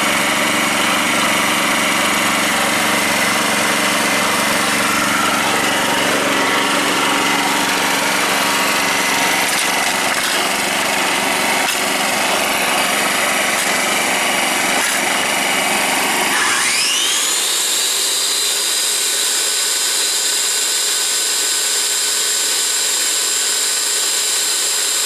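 Yamaha EF2800i inverter generator running under load from a circular saw. About two-thirds of the way in, a high motor whine rises sharply and holds steady, then starts to wind down at the very end. It is being run to burn the fuel out of the carburettor bowl.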